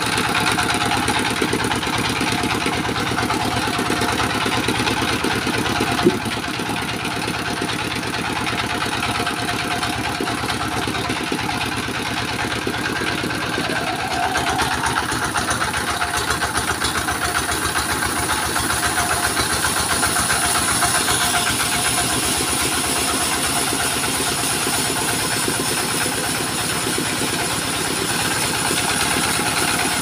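Single-cylinder horizontal diesel engine running steadily with a rapid, even firing pulse, driving the sawmill, with one sharp knock about six seconds in.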